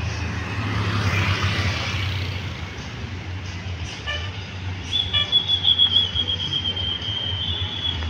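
Tour coach's diesel engine running as the bus pulls out and turns, a little louder about a second in. From about five seconds in, a shrill, fluttering high whistle holds steady to the end.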